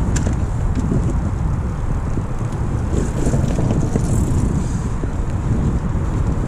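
Wind buffeting the microphone while riding a bicycle, a steady low rumble with faint ticks from the moving bike.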